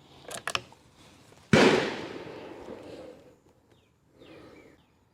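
A single shot from a Kimber 82G .22 rimfire target rifle about a second and a half in, the report fading away over about a second and a half. A couple of small clicks come just before it.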